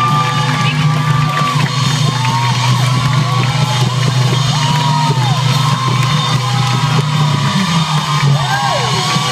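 Rock band playing live, heard from within the audience: a steady low bass under long held notes that bend up and down in pitch.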